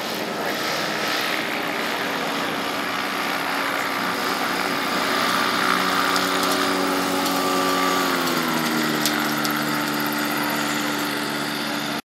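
Kolb FireStar ultralight's pusher engine and propeller running steadily as the plane rolls on grass, growing a little louder as it comes close, then falling in pitch about eight seconds in.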